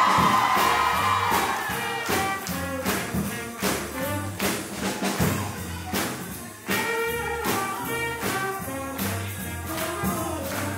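Live small swing jazz band playing an up-tempo tune, with trumpet over a steady drum beat and double bass.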